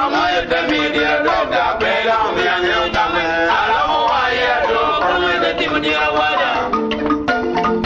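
A song with male voices singing together in a chant-like chorus over an instrumental backing. Near the end the voices drop out and repeated instrumental notes carry on.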